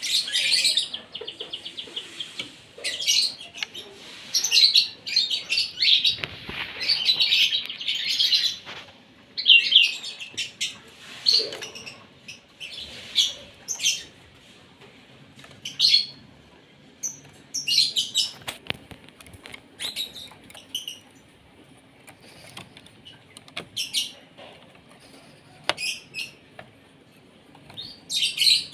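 Asian pied starling (jalak suren) calling in quick bursts of sharp chirps and whistles: a busy run of calls for the first several seconds, then shorter calls every second or two with pauses between.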